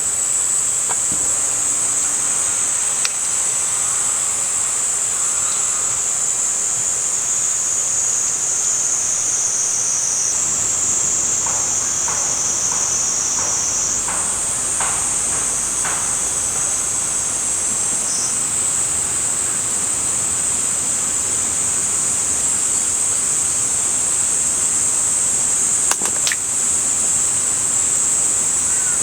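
Cicadas singing in a steady, high-pitched chorus whose pitch shifts a couple of times, with a few faint bird chirps in the middle and a single sharp click near the end.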